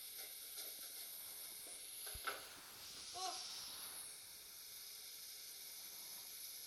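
Steady low hiss of background room noise picked up by a phone microphone, with one sharp knock about two seconds in and a brief vocal sound about a second later.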